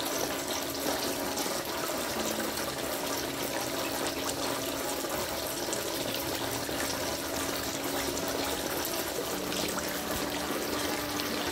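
Water in a small koi pond trickling and splashing steadily, its surface churned by the feeding koi.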